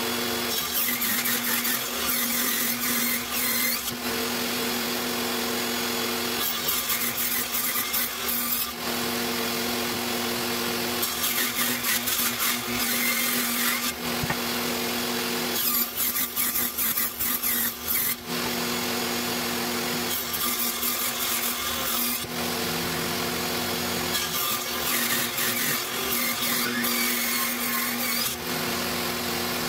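Table saw ripping wooden boards into strips along the fence, about six passes in a row. Each cut is a few seconds of harsh, high cutting noise over the saw's steady motor hum, which runs on between cuts.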